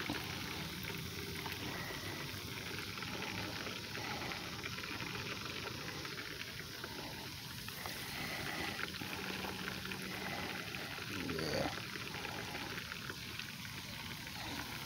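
Fish deep-frying in a pot of hot oil: a steady sizzle and crackle of bubbling oil.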